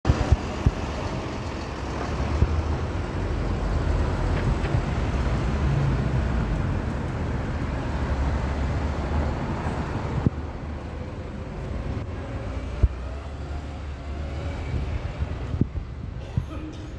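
City street traffic, with a double-decker bus passing close by; the low engine rumble is steady and eases off about ten seconds in.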